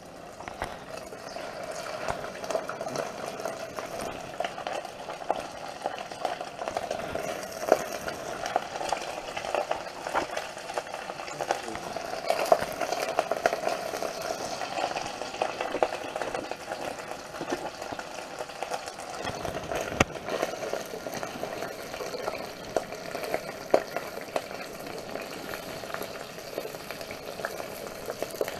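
Sausages frying in a hot pan: a steady sizzle with many small crackles and pops.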